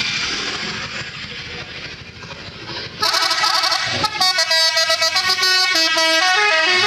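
A Mustika Holiday bus passing with engine and road noise, then about three seconds in its telolet horn plays a quick tune of stepping notes, loud and melodic, with a short break about a second later.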